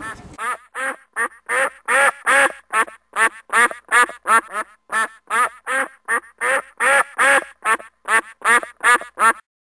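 A duck quacking over and over, about three quacks a second, in a steady run that stops suddenly near the end.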